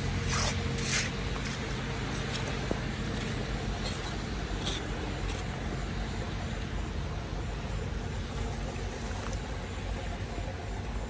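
Wet twigs and grass rustling and crackling as they are pulled by hand out of a clogged street drain, in several short bursts over the first five seconds, over a steady low rumble.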